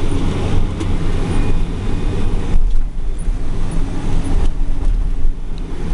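Loud, steady low diesel rumble of heavy corn-harvest machinery running, the following truck and the forage harvester working nearby. The hiss above the rumble eases for a couple of seconds midway.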